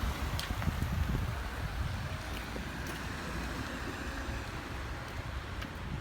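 Wind buffeting the microphone in uneven low gusts over a steady rushing hiss, with a few faint clicks.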